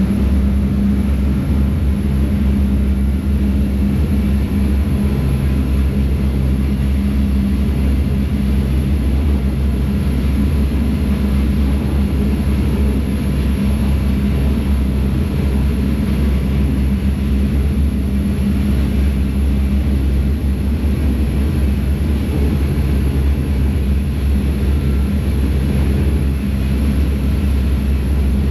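A Manly ferry's diesel engines running steadily under way: a constant low drone with a steady hum, mixed with the rush of water from the ferry's wake.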